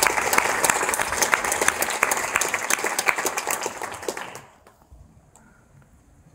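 Audience applauding, a dense patter of hand claps that dies away about four seconds in.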